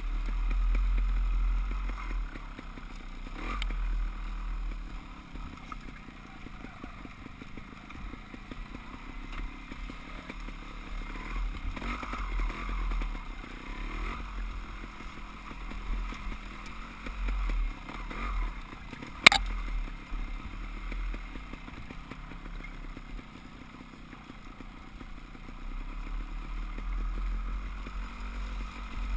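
Dirt bike engine revving up and down as it rides a rough forest trail, muffled, with heavy low wind rumble on the helmet-mounted microphone. A single sharp knock about two-thirds of the way through.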